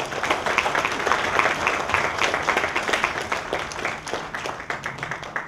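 Audience applauding, many people clapping together, the clapping thinning out and fading near the end.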